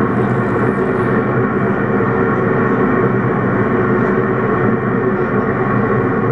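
Steady test noise played through a PA loudspeaker while its crossover bands are checked on a DLMS loudspeaker processor, the noise held mostly to the middle range by the crossover filter.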